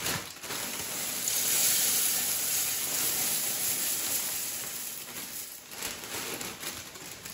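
Cornflakes pouring from a plastic bag into a glass bowl: a steady rustling patter with the bag crinkling. It thins out after about five seconds into a few separate ticks.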